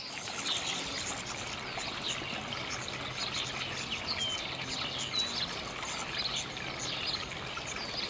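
Black redstart nestlings begging in a half-open nest box as a parent feeds them: a dense, high chatter of many short calls over a steady hiss.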